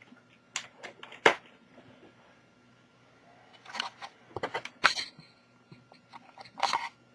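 Scattered clicks and knocks of a laptop being handled while its power is reconnected. The loudest click comes about a second in, there is a quick run of clicks at about four to five seconds, and a short rattle near the end.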